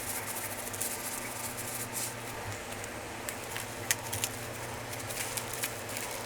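Light clicks, taps and rustling from hand food preparation at a crepe counter, over a steady low hum of shop equipment; the sharpest clicks come about four seconds in.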